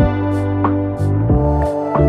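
Soft instrumental background music with held notes and a light, steady beat.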